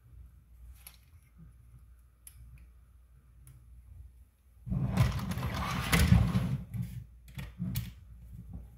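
Small screws and parts clicking faintly as they are handled. About five seconds in, a handheld power driver runs for about two seconds, driving a screw into the RC car's plastic suspension parts. A few sharp clicks follow.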